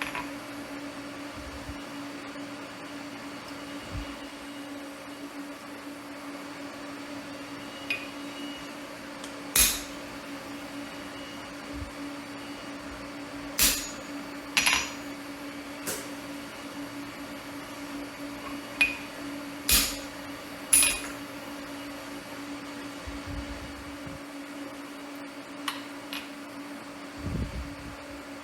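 A steady low machine hum runs throughout, with sharp metallic clinks and taps from metal tools and workpieces at irregular intervals, about eight in all, several seconds apart.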